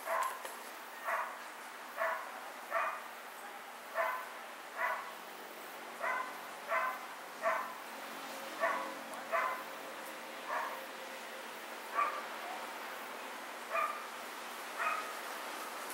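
A dog barking repeatedly, short single barks at a steady pace of about one a second.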